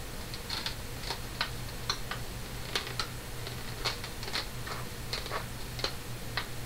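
Irregular light clicks and taps, about one or two a second, from hands working the thread and plastic parts of a small LSS 202 mini sewing machine as it is threaded, its motor not running.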